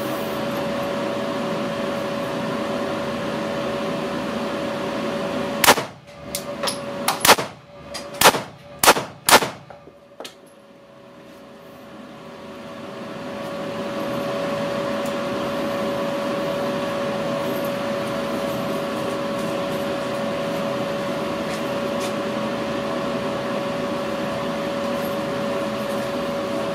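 A quick string of about six 9mm pistol shots from a Glock 19 Gen 4 MOS, unsuppressed, fired over about four seconds, over the steady hum of the range's extractor fan. Right after the shots the fan hum drops away, then fades back in over a few seconds.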